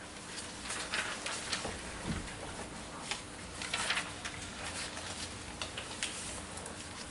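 Scattered faint clicks and rustles over a low room hum, with small handling noises coming irregularly, the loudest about a second, four seconds and six seconds in.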